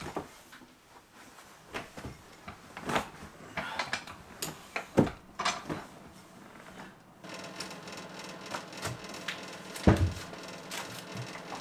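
Scattered knocks and clicks, then from about seven seconds in a treadmill's motor starts a steady whir, with a few thuds over it.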